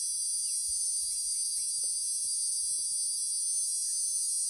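Cicada singing: a steady, high-pitched continuous buzz, the male's call to attract a female.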